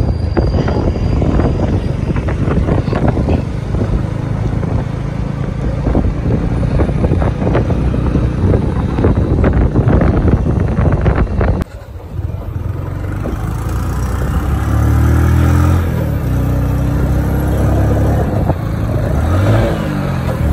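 Road and wind noise buffeting the microphone from a moving vehicle. After a sudden cut about twelve seconds in, the engine is heard speeding up twice, its pitch rising each time.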